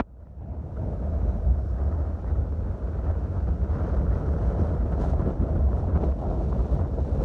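Strong wind buffeting the microphone: a steady low rumble that builds up over the first second and then holds with small gusts.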